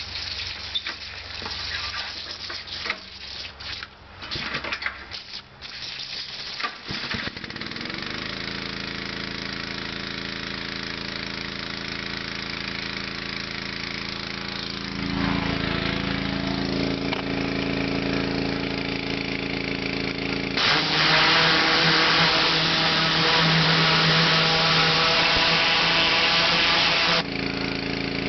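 Honda 11 hp pressure washer engine being pull-started: a few seconds of cord-pull rattles and knocks, then it catches about seven seconds in and runs steadily, picking up speed about halfway. For about six seconds near the end the high-pressure spray jet hisses loudly over the engine, then stops suddenly when the trigger is released.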